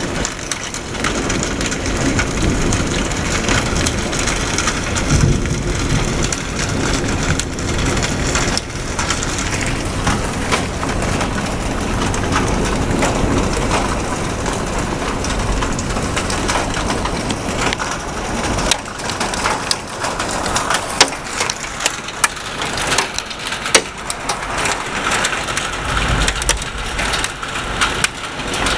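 Heavy rain in a severe thunderstorm, a dense steady downpour with a deep rumble of wind and thunder beneath it. In the last third, many sharp, irregular taps of drops or hailstones striking nearby surfaces stand out over the rain.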